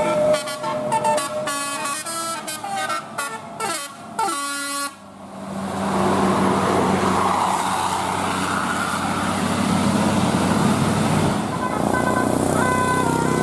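Bus telolet horn of the basuri type playing a quick tune of stepped notes for about five seconds. A stretch of engine and road noise follows, and the horn tune starts up again near the end.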